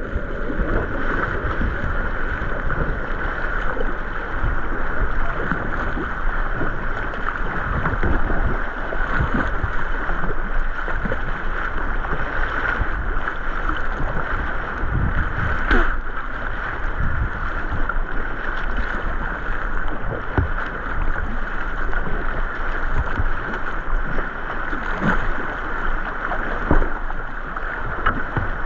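Steep-creek whitewater rushing around a kayak as it runs the rapids: a steady loud wash of water, with scattered knocks and splashes.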